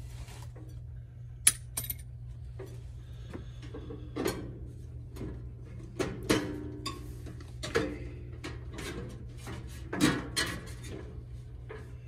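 Irregular metallic knocks, clinks and rattles as the condenser fan blade and motor assembly are handled on top of a Trane heat pump's outdoor unit cabinet, with a sharp click about a second and a half in and a louder knock near the end. A steady low hum runs underneath.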